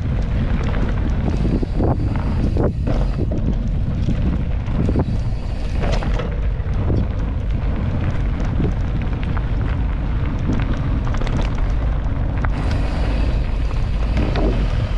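Wind rumbling on the microphone of a camera carried on a moving mountain bike, with many short knocks and rattles from the bike.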